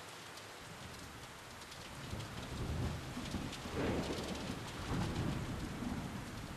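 Steady rain falling, with a low rolling rumble of thunder that builds from about two seconds in and peaks around the middle.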